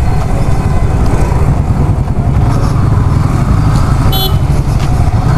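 Yamaha R15 V3's 155 cc single-cylinder engine running at low speed in town traffic, under steady wind rumble. A short horn toot comes about four seconds in.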